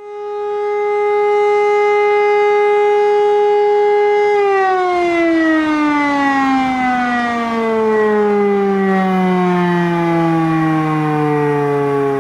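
E57 electric motor siren sounding the fire brigade alarm, calling out volunteer firefighters. It holds a steady tone for about four seconds, then the pitch falls slowly as the rotor winds down.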